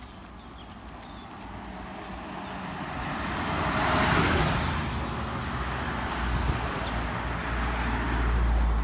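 A road vehicle passing, its tyre-and-engine noise swelling to its loudest about four seconds in and then easing off, followed by a low rumble that builds near the end.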